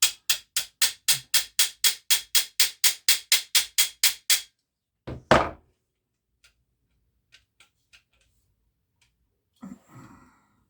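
A quick, even run of light hammer taps, about four a second, driving a pin through the Benjamin 710 air pistol's lined-up holes. The taps stop after about four seconds, and a single heavier knock follows, then a few faint clicks.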